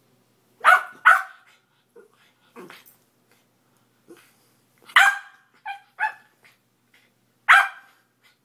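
Young West Highland White Terrier puppy giving short barks: two in quick succession about a second in, three close together around five seconds, and one more near the end, with a few soft grunts between.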